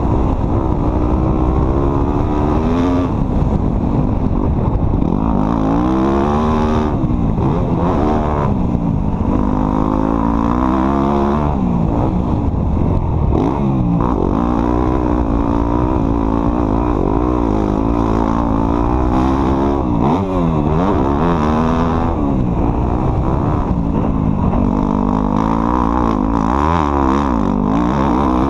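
Off-road vehicle engine running hard, its pitch rising and falling over and over as the throttle is worked.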